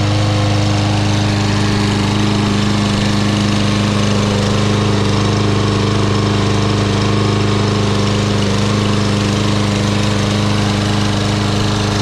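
Briggs & Stratton 550EX Series single-cylinder engine of a Troy-Bilt TB110 walk-behind lawn mower running steadily at an even speed.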